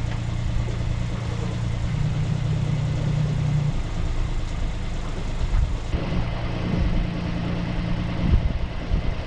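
A sailboat's inboard engine running steadily at low revs, with a low hum whose tone shifts slightly a few times.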